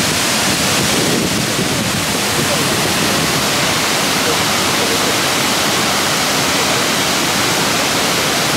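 Cheonjiyeon Waterfall pouring into its pool: a loud, steady rush of water, with faint voices of visitors underneath.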